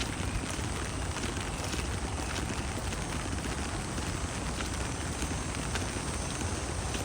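Steady rain falling, with many individual drops ticking close by over a constant low rumble.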